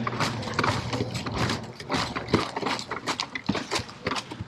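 Irregular sharp clicks and knocks, several a second, from masonry work on brick and mortar.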